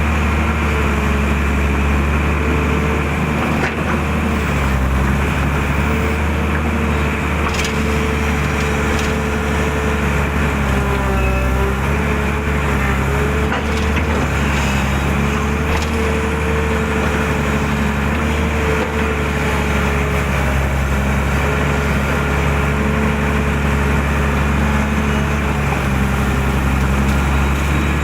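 Hydraulic excavator's diesel engine running steadily under load, with a hydraulic whine that wavers up and down as the arm and bucket work. A few sharp cracks sound over it.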